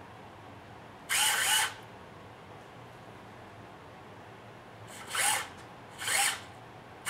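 Small electric motor in the HG P-802 HEMTT RC truck whirring in three short bursts of about half a second each, with a rise and fall in pitch, as the steering wheel on the transmitter is turned.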